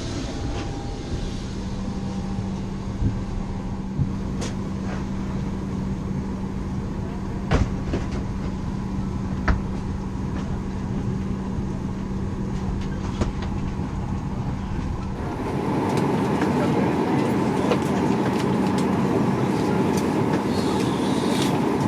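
Airliner cabin during boarding: a steady ventilation hum with a constant low tone, a few sharp knocks and a murmur of voices. About fifteen seconds in the sound changes abruptly to a louder, fuller cabin hum.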